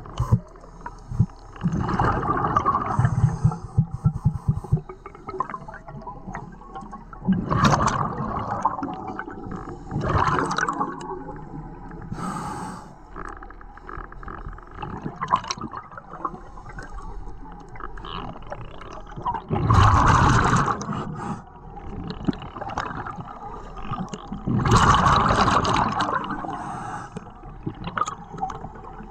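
Scuba diver breathing through a regulator underwater: a burst of exhaled bubbles every few seconds, about five in all, each lasting a second or two, with quieter stretches between.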